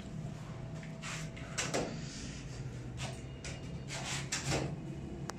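A few short knocks and rustles, some with a brief falling creak, over a steady low hum, and a single sharp click near the end.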